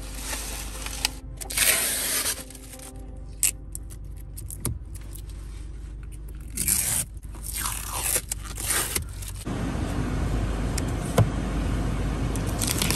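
Clear plastic protective wrap being peeled and crumpled off a new car's interior trim: crackling, scraping bursts with a few sharp clicks. About two-thirds through, a steady rush of air comes up, the car's air conditioning blowing hard.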